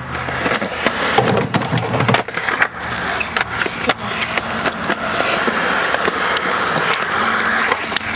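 Skateboard wheels rolling over concrete with a steady rumble, broken by sharp clicks and clacks as the wheels cross joints and rough patches. Near the end comes the clack of the tail popping as the board is kicked into a flip trick.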